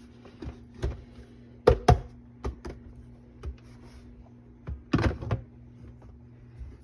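Scattered clicks and knocks of plastic parts being handled on a drip coffee maker, the loudest pair about two seconds in and a cluster about five seconds in, over a faint steady hum.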